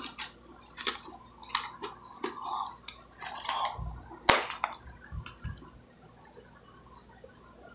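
Scissors cutting through a stiff clear plastic clamshell package, with irregular snips, crinkles and sharp snaps of the plastic; the loudest snap comes about four seconds in.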